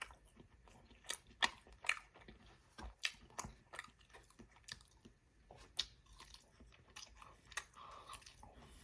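Chewing and biting into battered fried chicken strips: irregular crunchy, wet mouth clicks and smacks, about one or two a second.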